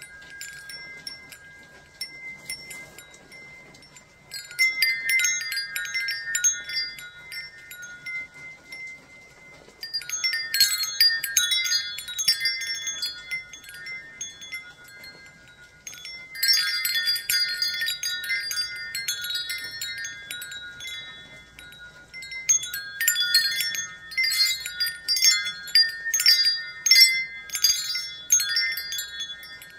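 Wind chimes ringing, in four bursts of many quick, overlapping strikes, with single tones dying away in the lulls between them.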